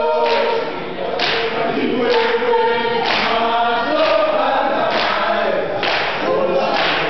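A group of students singing a song together, many voices in chorus, with a strong beat about once a second.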